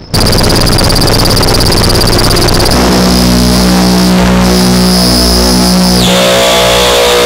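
Hornet modular synthesiser (a Synthi-style pin-matrix synth) sounding a loud, dense, noisy electronic texture that starts abruptly, with a high steady tone over it. About three seconds in, a steady drone with many overtones comes in, and about six seconds in the high tone glides down.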